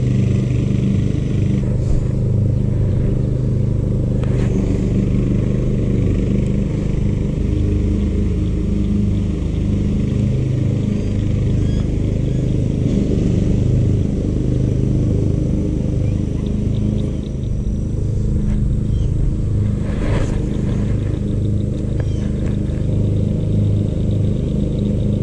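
A steady low engine hum, like a motor running without a break. A few faint clicks come through, about two, four and twenty seconds in.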